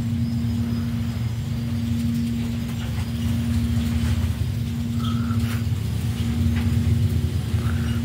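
A small motor running with a steady low hum and a constant droning tone, unchanging throughout. A couple of faint short squeaks come about five and seven and a half seconds in.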